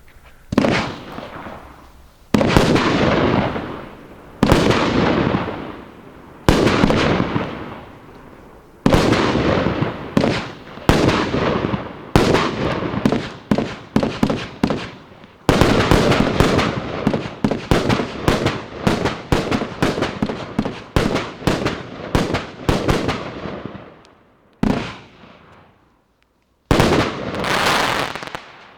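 A 24-shot Thunderbolt 1 fireworks cake firing its shots. The first few come about two seconds apart, a quick volley follows through the middle, and two last shots come near the end, each a sharp report with a fading, crackling tail.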